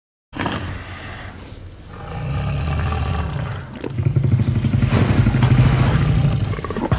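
Jurassic Park Tyrannosaurus rex roar sound effect: a deep roar that comes in suddenly, then swells twice, the second swell the longest and loudest.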